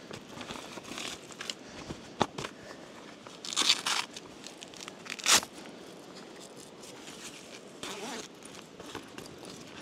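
Hiking gaiters being unfastened and pulled off: a ripping rasp of Velcro-type fastening about three and a half seconds in, a sharp loud rip a little after five seconds, another shorter rasp near the end, with fabric rustling and small clicks between.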